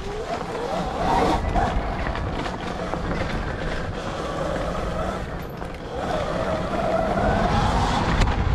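Dirt bike riding: a motor's pitch rises and falls with the throttle over low rumble and wind on the microphone.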